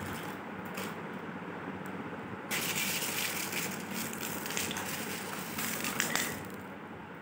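Small white gravel pebbles crunching and rattling as hands scoop them from a plate and drop them into foil trays. The crunching grows louder and brighter about two and a half seconds in and eases off near the end.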